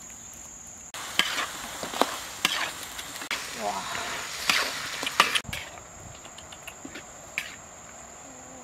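Duck pieces stir-frying and sizzling in a wok over a wood fire, with a metal spatula scraping and clacking against the pan several times. After about five seconds the sizzle drops away to a quieter background.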